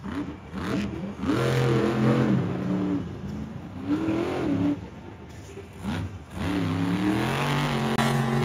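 Monster truck's supercharged V8 engine revving hard in repeated surges: it climbs, eases off and climbs again three times, then holds at high revs near the end.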